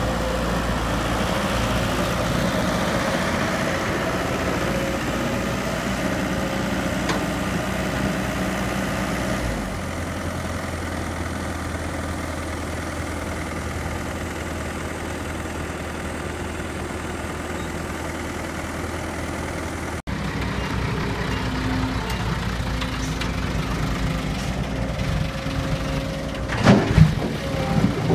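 Heavy diesel machinery engines running steadily, with the engine note changing partway through. A few loud knocks come near the end.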